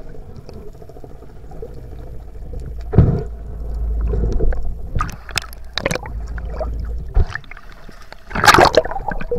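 Water heard through a submerged camera: a low rumble with scattered knocks and bubbling, then a loud splash about eight and a half seconds in as the camera comes up at the surface beside the boat's hull.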